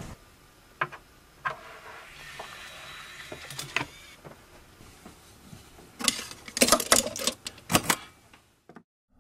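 Handling a Bose Wave CD music system: scattered clicks and knocks as it is loaded and its buttons are pressed, then a quick run of louder clicks and rattles near the end.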